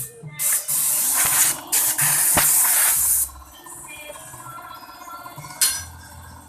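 Pressurised spray hissing in several bursts: a short one, then one running about a second and a half, with a brief one near the end, over faint background music.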